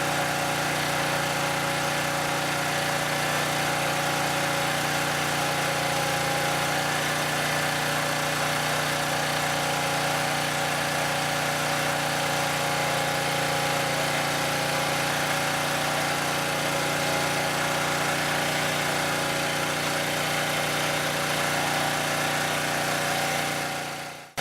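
Southland lawn edger's small gasoline engine running at a steady idle, then fading out at the very end.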